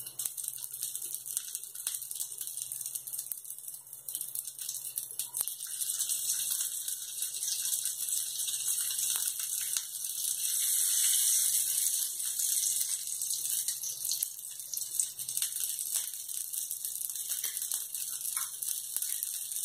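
Semolina batter and oil sizzling steadily in a nonstick frying pan, with a few soft taps and clicks as potato filling is pressed down onto the cutlet.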